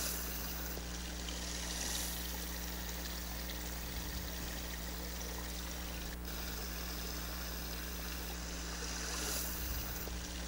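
Small stream of running water trickling steadily.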